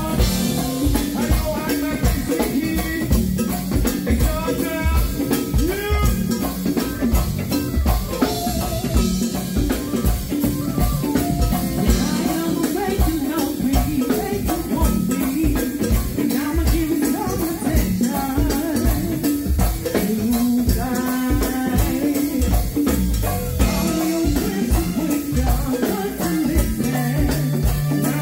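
Live go-go band playing: a drum kit and hand percussion keep a steady, busy beat under bass guitar, with singers at the microphones.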